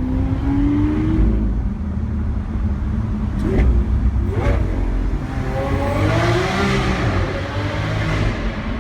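Lamborghini Aventador SV's V12 engine under way, its note rising at first, with two brief sharp bursts midway, then revving up loudly and rising in pitch near the end.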